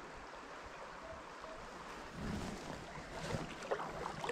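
Steady rush of flowing river water. In the second half, a low handling bump and then irregular small clicks and rattles as a spinning reel is wound in.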